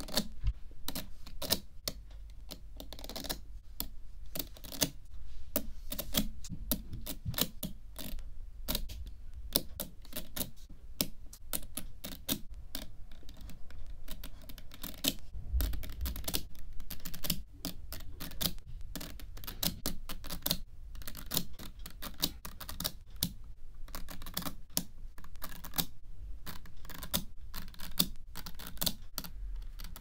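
Small magnet balls clicking and snapping against each other in quick, irregular succession as strands of them are laid onto a hexagonal tube of balls.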